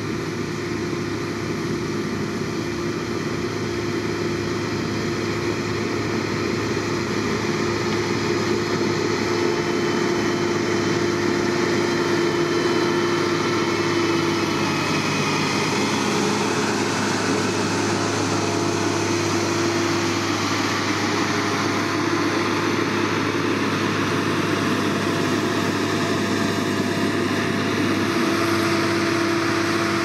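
Diesel engine of heavy road-building machinery running steadily, with a constant hum, getting slightly louder over the first ten seconds or so.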